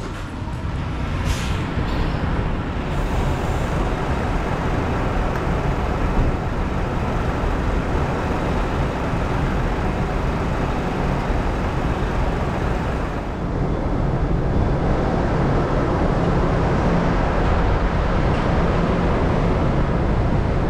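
Steady outdoor rumble and hiss, like traffic or idling machinery. About 13 seconds in it dips briefly and goes on steadier, with a lower hum.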